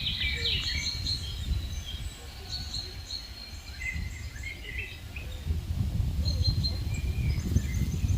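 Several small birds chirping and calling on and off in a spring forest, over a low rumble of wind on the microphone that grows stronger about five seconds in.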